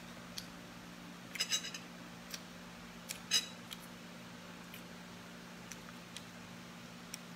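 Small clicks and clinks of eating by hand from a plate of rice and mussels. There is a quick cluster about a second and a half in and a sharper single click about three and a half seconds in, over a low steady hum.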